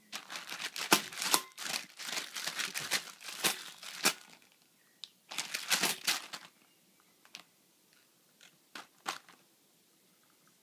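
A crinkly plastic package crumpled and shaken in a baby's hands, in two long bursts of crinkling. A few sharp taps follow near the end.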